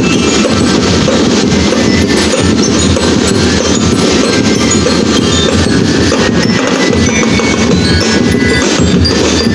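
Marching drum and lyre band playing: metal bell lyres chiming over continuous snare and bass drumming, at a steady level.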